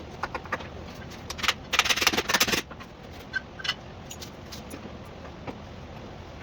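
Small metal parts and hand tools clinking and rattling: scattered single clicks, and a dense burst of rattling about two seconds in.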